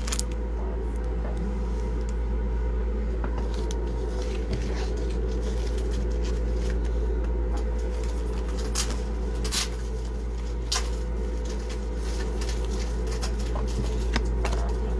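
Steady low electrical-type hum, with a few short clicks and taps scattered through from handling trading cards and their packaging.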